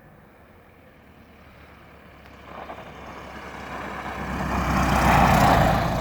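Light propeller airplane landing: its engine and propeller noise grows steadily louder, is loudest as it passes close by about five seconds in, then begins to fade.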